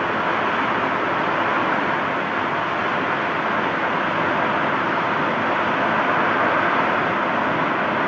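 Tornado winds rushing in a loud, steady, unbroken noise, with no gusting let-up.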